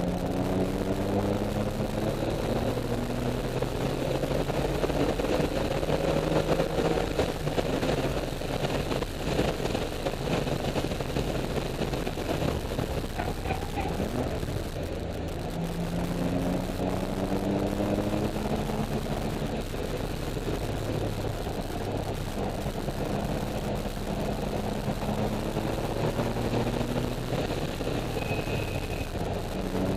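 2004 Porsche 996's flat-six engine heard from inside the cabin, pulling hard through the gears on track. Its pitch rises in several long climbs, broken by gear changes and lifts for corners, over steady road noise.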